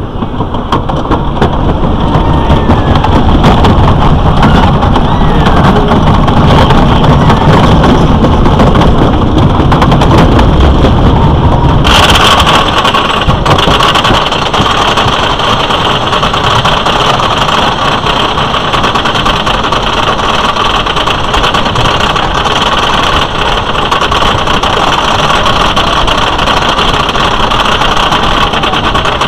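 Lightning Racer wooden roller coaster train rolling along its wooden track with a heavy rumble. About twelve seconds in the lift-hill chain engages and the train is hauled up the lift hill with a steady mechanical drone.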